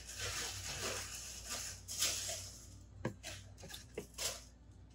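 A spoonful of broth slurped from a spoon, followed by a few light clicks and knocks as the spoon and bowl are handled and set down.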